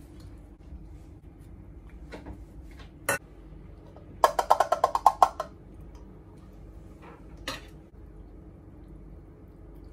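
A tin can of baked beans knocked against a stainless steel pot: one sharp knock, then about ten quick ringing metal clinks in just over a second as the beans are shaken out, and a lighter knock near the end.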